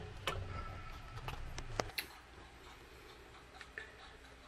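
A utensil clicking and tapping lightly against a cooking pot several times in the first two seconds, then only faint room tone.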